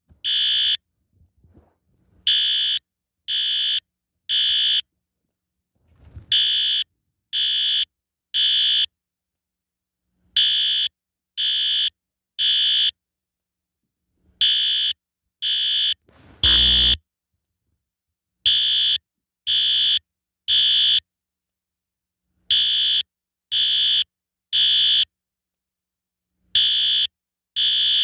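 System Sensor SpectrAlert Advance fire alarm horn sounding temporal code 3: three short, shrill blasts, then a pause, repeating about every four seconds to signal evacuation. A dull thump lands with one blast a little past the middle.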